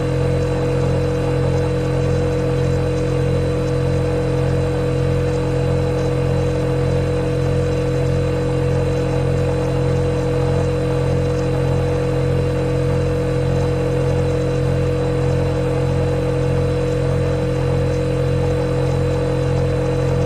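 Refrigerator running with a steady, unchanging low hum and a few constant higher tones above it.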